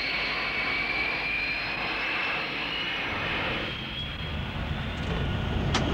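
Jet aircraft engine whining, a high steady whine that drifts slowly up and then down in pitch, with a low rumble growing stronger in the second half and a sharp click near the end.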